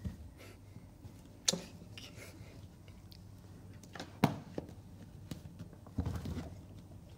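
Toddler's hands knocking and shuffling a picture book on a plastic box: a few sharp knocks, about one and a half and about four seconds in, then a brief scuffle near the end.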